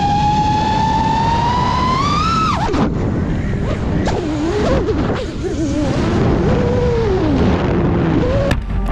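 FPV drone's brushless motors whining: the pitch climbs for about two and a half seconds, drops sharply as the throttle is chopped, then wavers up and down at a lower pitch with throttle changes, over a steady rumble of wind noise.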